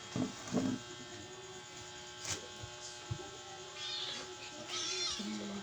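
A cat meowing twice in high, wavering calls about four and five seconds in, over a steady electrical hum, with a few soft knocks earlier.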